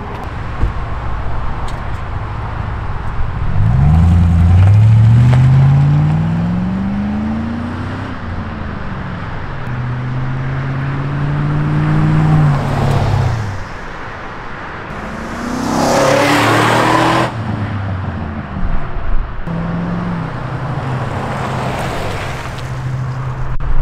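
V8 exhaust of a 2006 GMC Sierra 1500 running through a Flowmaster Super 10 muffler as the truck accelerates past. The engine note climbs in pitch as it revs up, eases off, and climbs again, with a loud rush about two-thirds of the way through.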